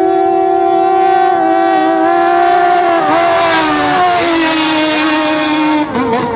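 Racing longtail boat engines running flat out as the boats speed past, a loud, high, steady engine note. A hiss of spray joins it as a boat passes close, and the pitch falls slightly about four seconds in as it moves away.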